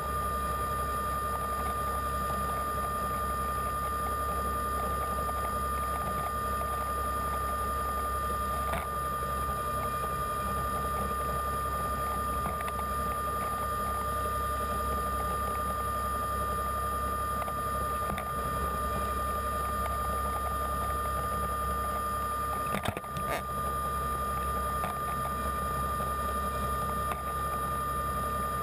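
Underwater scooter (diver propulsion vehicle) motor running steadily underwater, a constant high whine over a low hum. A brief click about 23 seconds in.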